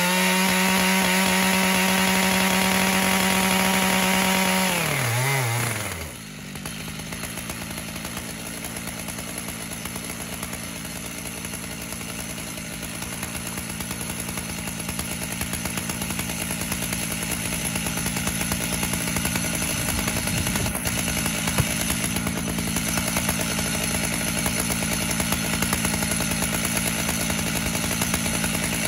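Two-stroke chainsaw on a chainsaw mill running at full throttle, ripping lengthwise through a sycamore log. About five seconds in the throttle is released, the revs fall away, and the saw idles steadily for the rest.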